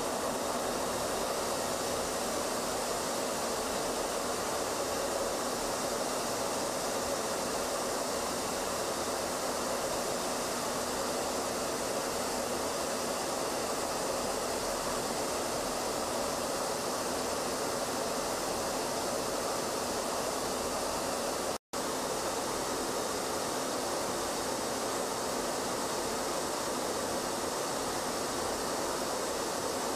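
Steady, even rushing noise with no distinct tone or rhythm; it drops out for an instant about 22 seconds in.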